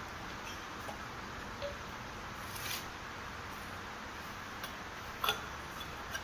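Steel trowel working wet cement mortar: a few faint ticks, a short scrape about two and a half seconds in, and a sharp tap a little past five seconds, over a steady hiss.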